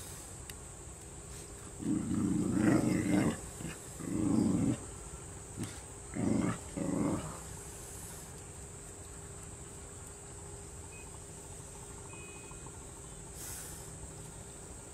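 A dog growling in four short bursts, the first the longest.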